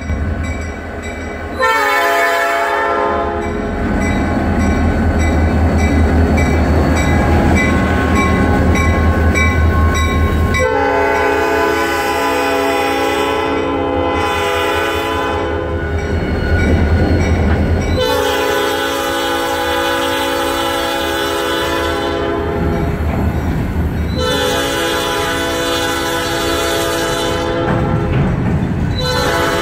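Diesel freight locomotive sounding its horn in a series of long blasts as it passes close by, over the low rumble of its engine, with covered hopper cars rolling past behind it.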